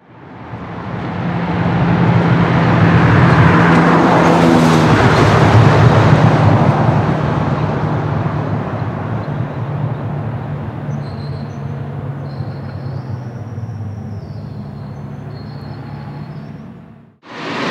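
Ferrari F355 Challenge race car's V8 running at a steady low pitch as the car pulls away slowly, loudest a few seconds in and then growing gradually fainter as it moves off. Just before the end it cuts out and a louder engine sound takes over.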